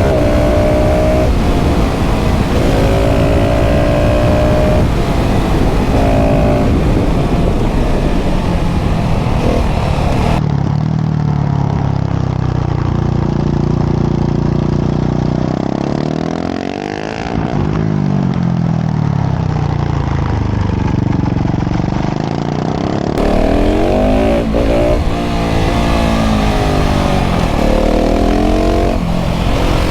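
KTM 690 SMC R's single-cylinder LC4 engine, breathing through a full LeoVince exhaust, revving hard under full throttle. Its pitch climbs and drops repeatedly as it shifts up through the gears. About halfway through the revs fall away and then rise again.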